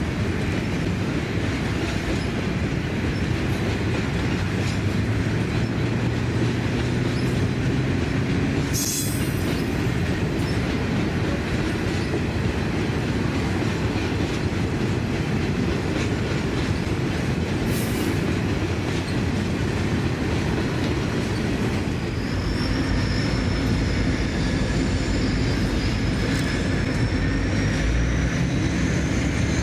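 Loaded grain hopper wagons rolling steadily past, a continuous rumble of steel wheels on rail with clicking over the joints. Two short high-pitched hisses come about a third and two-thirds of the way through, and in the last quarter a thin, wavering wheel squeal sets in.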